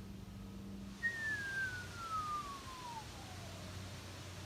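A single thin whistling tone that starts about a second in and glides steadily down in pitch for nearly three seconds. A low steady hum stops just as it begins.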